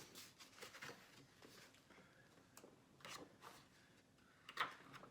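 Near silence with faint, scattered rustles and soft clicks of something being handled, the sharpest a little before the end.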